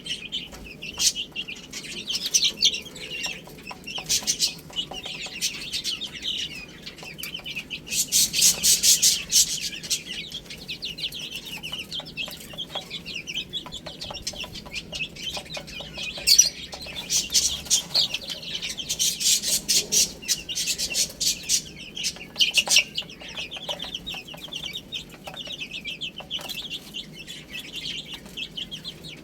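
A group of baby chicks peeping continuously in short, high-pitched chirps, with louder, busier flurries of chirping twice, about a third of the way in and again past the middle.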